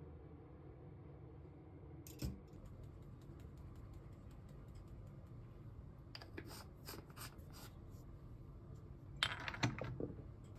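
A moka pot and a ceramic mug being handled on a kitchen counter: one knock about two seconds in, a run of light ticks a few seconds later, and a sharper cluster of clicks near the end as the mug is taken in hand, over a low room hum.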